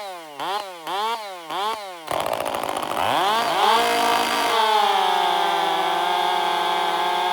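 Two-stroke chainsaw engine revved in quick repeated swoops about twice a second, then revved up and held running steadily at high speed.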